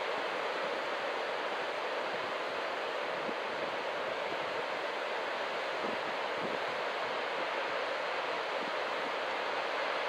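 Ocean surf breaking on a sandy beach, a steady wash of wave noise.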